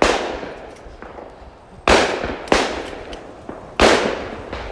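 Four shotgun shots at clay targets, each dying away in an echo. The second and third come about half a second apart, as a pair.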